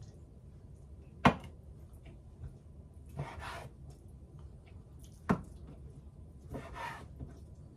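Knife knocking sharply against a cutting board twice, about four seconds apart, while raw chicken breast is cut into small pieces, with two short, softer scraping sounds of the blade and meat in between.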